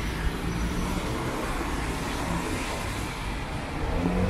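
Steady city street traffic noise: cars running and passing on a wet road, with a continuous low rumble.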